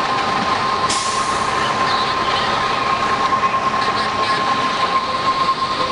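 Engine-driven fire equipment running steadily: a continuous machine noise with a constant high-pitched whine. A brief hiss comes in about a second in.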